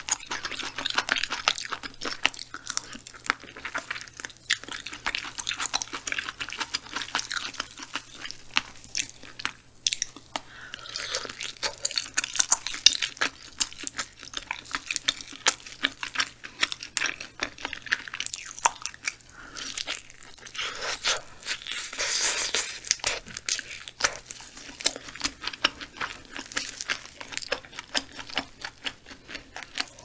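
Close-miked chewing and biting of cooked frog meat: a steady run of small wet clicks, smacks and crunches from the mouth.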